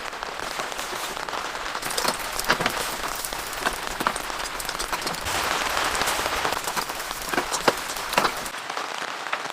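Steady rain, with scattered sharp ticks of individual drops striking a surface.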